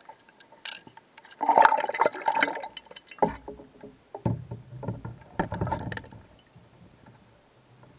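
Water splashing and sloshing in a camera rinse tank, with a loud splash about a second and a half in. After that the sound turns dull and muffled, low knocks and sloshes heard from the submerged camera, fading out near the end.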